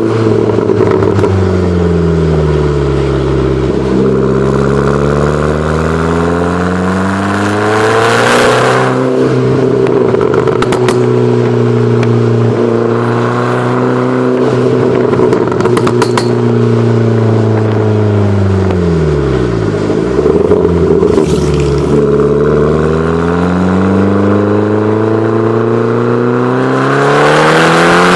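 Fiat Grande Punto Abarth's 1.4 turbo four-cylinder engine running and being revved. The note falls and climbs several times, drops very low about two-thirds of the way through, and rises again near the end, with a few brief rushes of noise.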